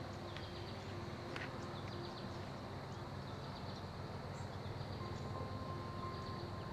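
Field ambience: faint, short chirps of birds and insects over a steady low rumble. A thin steady tone comes in about five seconds in.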